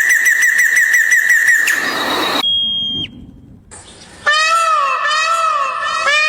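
Animal calls from two different clips: a high, rapidly trilling whistle that stops abruptly about two and a half seconds in, then, after a short gap, a run of repeated arching calls, each about half a second long, rising and falling in pitch.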